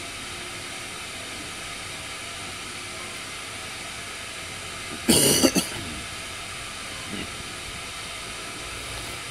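Steady hiss of a pocket canister stove burning under a covered pot, heating water. A brief loud noise cuts in about five seconds in.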